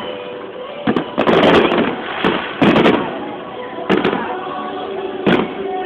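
Aerial fireworks shells bursting overhead: a string of sharp bangs, some coming in quick clusters, with six or so reports over a few seconds. Voices murmur underneath.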